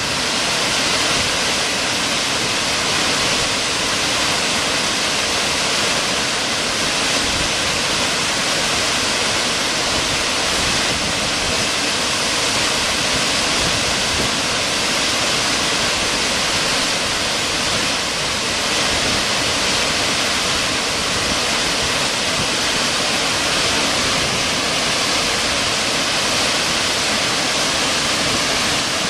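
Wide river waterfall in heavy flow pouring over a rock ledge into churning white water: a loud, steady, unbroken rush of falling water.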